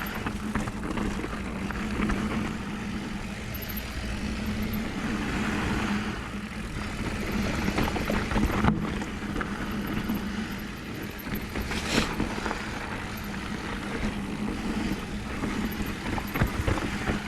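Mountain bike descending a downhill trail: a steady rush of wind and tyre noise over a low hum, with scattered knocks and rattles from the bike, one sharper knock about twelve seconds in.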